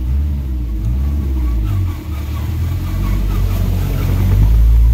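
A car driving through deep floodwater, heard from inside the cabin: a heavy, steady low rumble of the engine, with water rushing against the body and windscreen.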